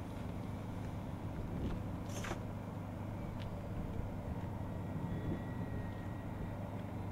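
Dynam Grand Cruiser RC plane's twin electric motors flying at a distance: a steady drone over low rumble, with a brief hiss about two seconds in.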